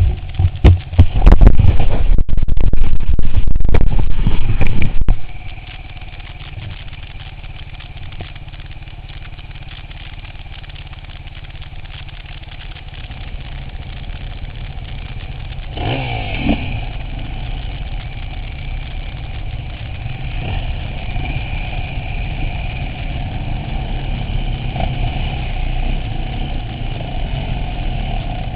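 Off-road vehicle engine running. The first five seconds are loud, with a clatter of sharp knocks; then it settles to a steadier run, with a brief rise in pitch about sixteen seconds in.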